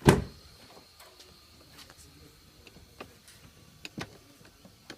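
A Fiat car door shuts with a single solid thump, followed a few seconds later by several small, sharp clicks of the door's lock and handle being tried.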